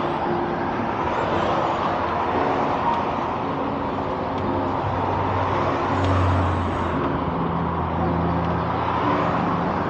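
Steady road and wind noise of riding along a street, with a low vehicle engine hum that swells about six seconds in and then carries on.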